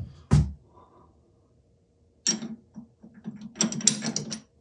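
A steel chuck key clicking and rattling against a Jacobs No. 20 drill chuck as it is tried in the key hole, a run of quick metallic clicks over the last two seconds; the key is too small for the chuck. A single thump comes about half a second in.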